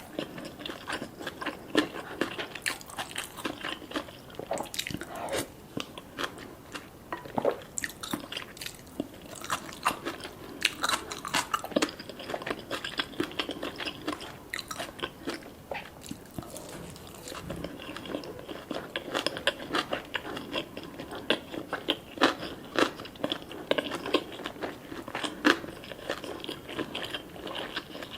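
Close-up eating sounds: a person biting and chewing fish cake and gimbap, with many quick, irregular wet clicks and small crunches.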